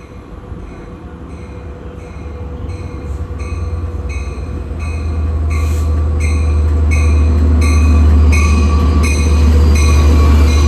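Long Island Rail Road DE30AC diesel locomotive approaching and passing close by at the head of a bi-level passenger train. Its low engine rumble grows steadily louder as it nears, and a bell rings steadily at about two to three strokes a second, getting louder with the train.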